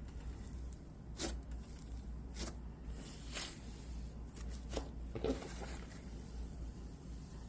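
Pumice slime being squished by hand, giving about five brief soft crunches and squelches spaced a second or so apart, over a faint low hum.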